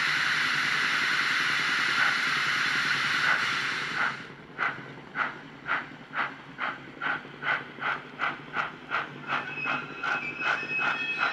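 Sound decoder of a Graham Farish N gauge Stanier 8F steam locomotive model: a steady steam hiss for about four seconds, then exhaust chuffs that start slow and quicken as the engine picks up speed. A thin high tone joins the chuffs near the end.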